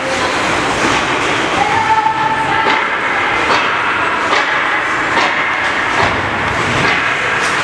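Ice-arena noise during a ringette game: a steady hubbub of crowd and rink sound with scattered sharp knocks.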